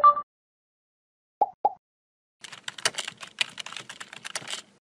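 Computer keyboard typing sound effect: a quick run of key clicks lasting about two seconds in the second half. Before it come a short two-note tone at the very start and two brief blips about a second and a half in.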